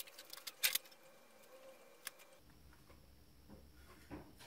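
A few light clicks and knocks of small tools being handled on a workbench: one at the start, a sharper one under a second in, and another about two seconds in. Quiet room tone fills the gaps.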